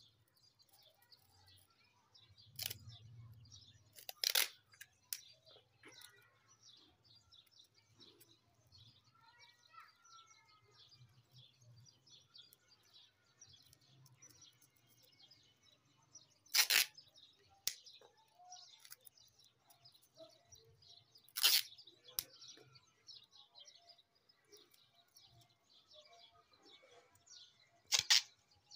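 Adhesive tape ripped off the roll in short, sharp tearing bursts, about five times, spaced several seconds apart. Birds chirp faintly throughout.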